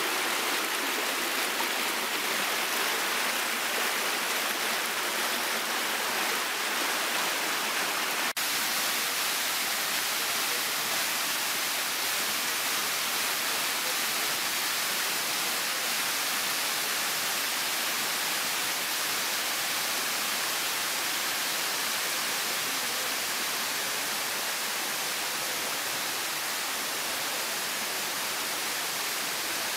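Small waterfall and stream rushing over rocks: a steady, even rush of water, with a brief break about eight seconds in.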